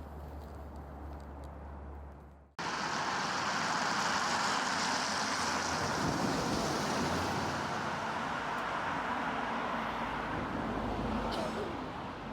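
Low steady hum, then after an abrupt cut a loud, even rushing of road traffic that eases off near the end.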